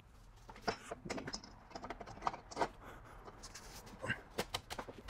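Scattered light clinks and knocks as an exhaust pipe is lifted and fitted up under a car, with metal parts tapping against each other at irregular moments.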